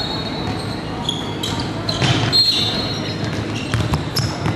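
Basketball bouncing on a hardwood gym floor amid players running, with a few short sneaker squeaks, all echoing in a large hall.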